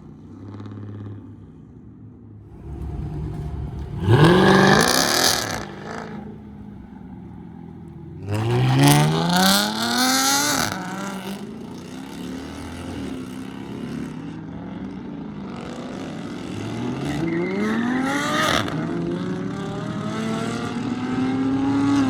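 Dodge Charger engine and exhaust revving hard three times, each rev climbing steeply in pitch before dropping back, with the car running between the revs.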